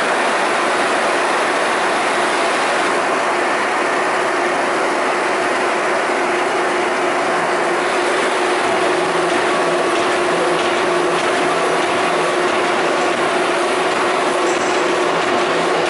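Euromac MTX CNC turret punch press running a punching cycle: a rapid, continuous mechanical clatter of punch strokes and sheet moves over a steady hum.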